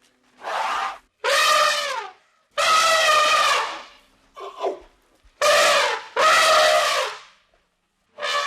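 An animal calling over and over: about six pitched, brassy calls, each half a second to a second and a half long, with short pauses between them.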